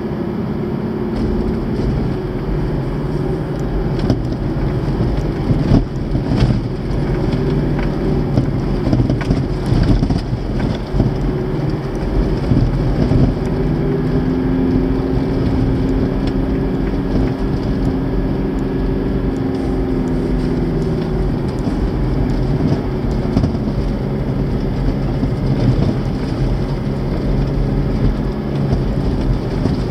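Vehicle engine running under steady load and tyres rolling over a rough gravel road, heard from inside the cab, with the engine note rising and falling gently. Several sharp knocks and rattles from bumps in the first third.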